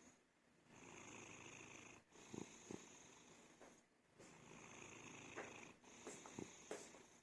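Exotic Shorthair cat snoring in deep sleep: faint raspy breaths, about four in a row, each with a short pause between, and a few brief snorts.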